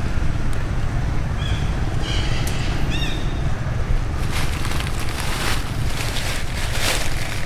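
Steady, buffeting low rumble of wind on the microphone, with a few short high chirps about one and a half to three seconds in. In the second half come several bursts of rustling hiss.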